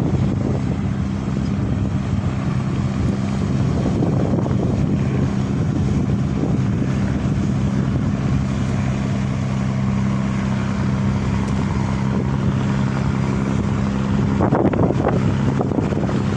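Ferry boat engine running at a steady hum under way, with a wash of wind and water noise. There is a brief louder rush of noise near the end.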